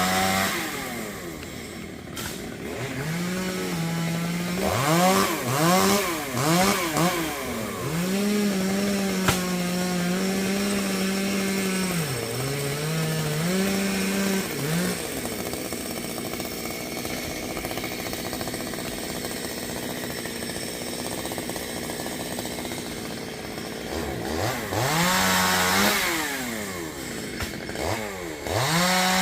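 Chainsaw being revved up and down several times, then held at high speed as it cuts into Melaleuca wood. It drops to a low idle for several seconds, revs up and down again, and goes back to high speed near the end.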